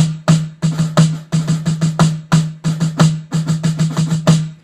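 Snare drum playing a fast rhythmic passage of the solo: a dense run of sharp strokes with louder accented notes and a steady low ring of the drum under them, stopping just before the end.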